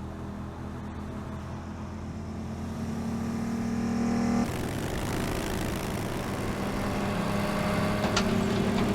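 Motorcycle engines running as a group rides, growing louder, then changing abruptly about halfway through to a denser engine sound. A few sharp clicks come near the end.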